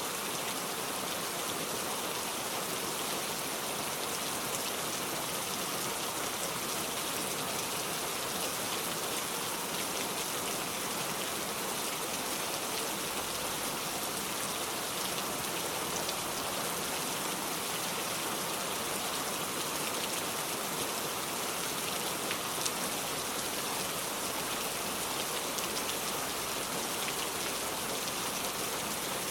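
Steady rain falling, an even hiss with fine drop ticks and no change in strength.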